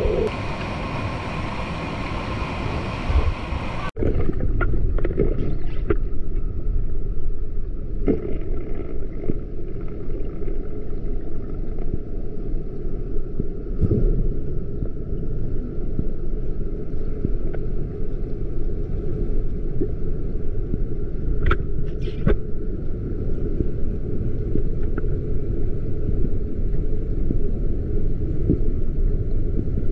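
Rushing water for about four seconds, then a sudden cut to a muffled low rumble and gurgling with a few sharp clicks, like sound recorded with the camera under the water of a river.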